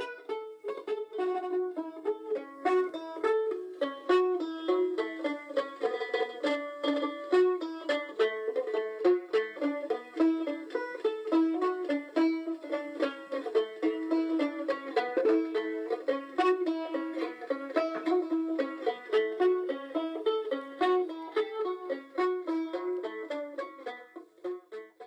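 Background music: a quick melody of plucked string notes, in the style of a mandolin or banjo.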